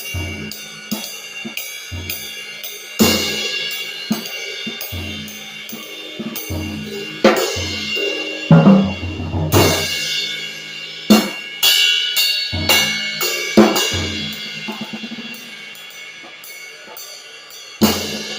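Vintage Sabian cymbals played on a drum kit: repeated crashes ringing out and fading, over bass drum and tom hits. About seven cymbal strikes stand out as loudest.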